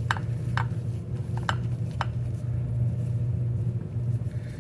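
Light metallic clinks and clicks from chainsaw parts and hand tools being handled, four in the first two seconds, over a steady low hum.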